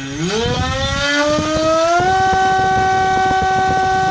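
FPV Model MC2204 2300 kV brushless motor spinning a 5030 propeller on a 3S LiPo, throttled from half up to full: its whine rises in pitch over about two seconds, then holds steady at full throttle.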